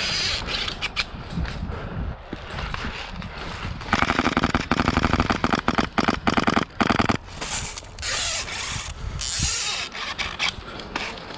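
Airsoft gun firing a rapid string of shots for about three seconds, starting about four seconds in, with rustling gear and movement before and after.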